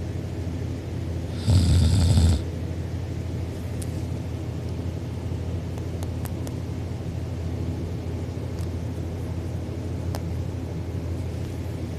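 A sleeping person snoring: one loud snore about one and a half seconds in, lasting under a second, over a steady low hum.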